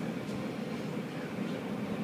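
Steady low mechanical rumble of running machinery, even in level with no rhythm.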